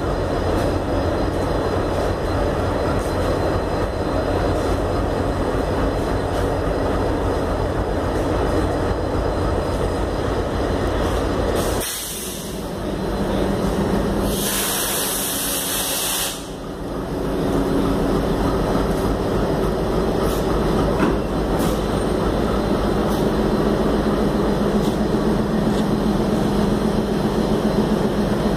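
Railway locomotive running close by at a station, a steady rumble with a low engine hum. About halfway through, a loud hiss of released air lasts about two seconds.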